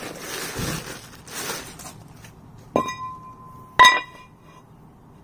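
Plastic bag crinkling as a new Hummer H2 front brake rotor is unwrapped, then two metallic strikes about a second apart, each leaving the rotor ringing with a clear tone; the second strike is the louder.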